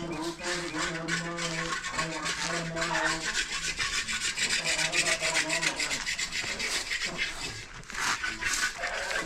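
A broom sweeping the ground in repeated short scraping strokes, brushing up garden debris.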